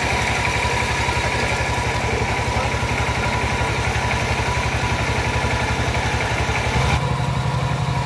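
Engine of a hydraulic soil-sampling drill rig running steadily with a fast, even pulse and a thin whine, while the rig bores its rod into the ground. About seven seconds in the sound shifts to a deeper hum.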